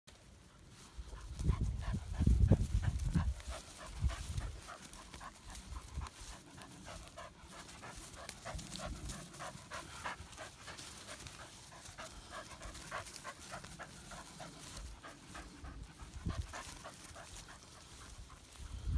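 English Springer Spaniel panting close to the microphone in quick repeated breaths. A loud low rumble on the microphone comes in the first few seconds.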